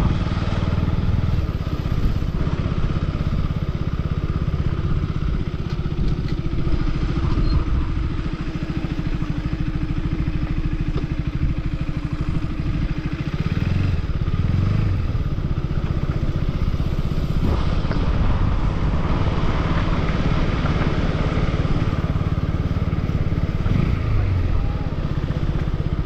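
A motor vehicle's engine running steadily on the move, its pitch rising and falling a couple of times, about halfway through and again near the end, as it revs or changes gear.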